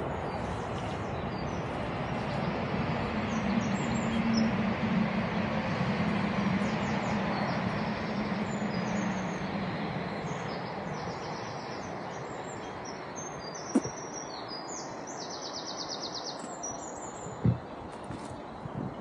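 Rumble of a passing vehicle that swells and fades over several seconds, a low hum at its loudest, while small birds chirp high up. Two short knocks near the end.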